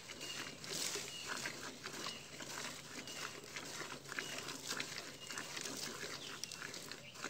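Milk squirting by hand from a cow's teats into a steel bucket: short hissing spurts in a steady rhythm, about two a second.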